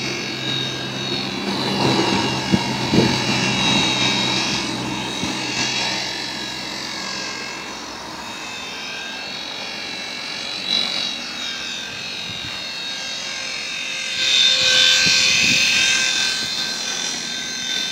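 Tiny electric RC airplane, built from salvaged mini RC helicopter parts, flying: its small electric motor and propeller give a high, wavering whine, which grows louder about fourteen seconds in as the plane comes close and low.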